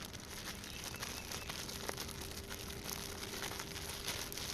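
Plastic crinkling and crackling steadily as a bait bag is handled, the beef stew tips inside soaking in crawfish scent.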